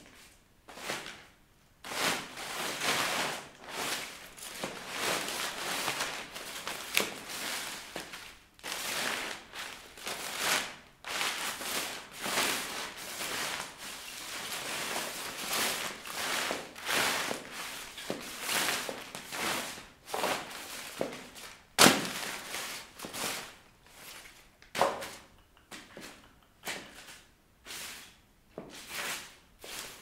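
Sheets of printer paper tearing, rustling and crumpling under high-heeled shoes on a tiled floor, starting about two seconds in and thinning out near the end. About two-thirds of the way through, one sharp, loud click stands out above the paper noise.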